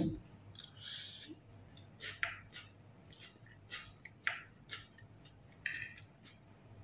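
A person chewing food close to the microphone: faint, scattered soft crunches and small mouth clicks at uneven intervals.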